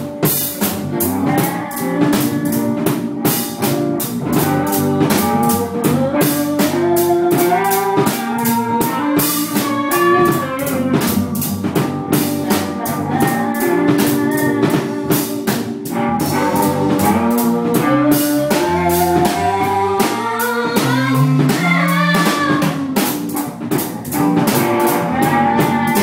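A small band playing a bluesy groove: a drum kit keeps a steady beat with rim clicks and cymbal strokes under guitar lines that bend in pitch and a walking low bass line.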